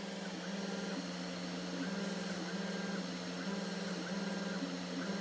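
Small CNC mill's 500-watt spindle running steadily while it mills traces into a copper-clad circuit board. Its stepper motors give short whining tones that start and stop every half second or so as the axes move.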